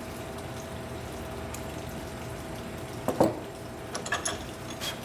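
Metal parts handled on a workbench: one sharp metallic clunk about three seconds in, then a few light clicks, over a steady shop hum.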